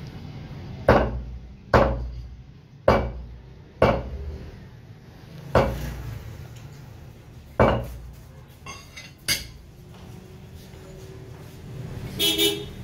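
Heavy meat cleaver chopping chicken on a wooden stump chopping block: seven sharp chops, irregularly spaced about one to two seconds apart, with a few lighter taps just before the last one. Near the end comes a brief, ringing metallic clang.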